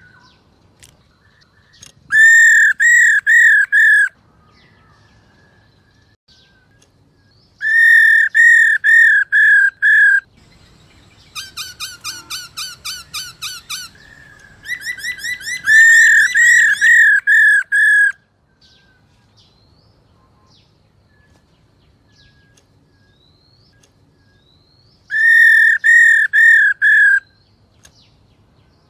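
Black-throated laughingthrush calling: four bouts of five or six loud, evenly spaced harsh notes, with a softer, faster run of notes in the middle. This is the female's 'ro' call that keepers play to stir males into singing.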